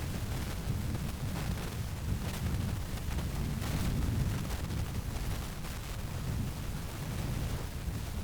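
Wind buffeting the microphone: a steady, uneven low rumble with faint hiss above it.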